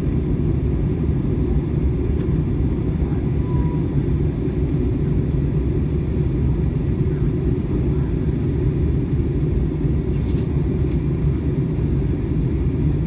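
Steady low drone inside the cabin of an Airbus A321 during its descent: engine and rushing-air noise, heaviest in the low end and unchanging throughout.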